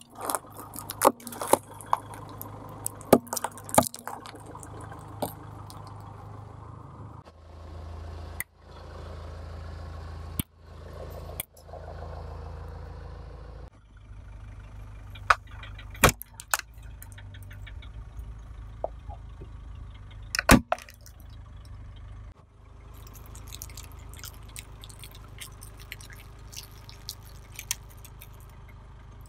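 A car tyre rolling slowly over small objects and crushing them: sharp cracks and snaps, a few of them very loud, over the low steady hum of the car's idling engine. Hard lollipops shatter with a quick run of cracks at the start, and near the end comes a long run of small crackles.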